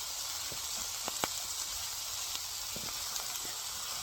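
Sliced New York strip steak frying in a pan with sautéed vegetables: a steady sizzling hiss with a few small pops, the sharpest a little over a second in.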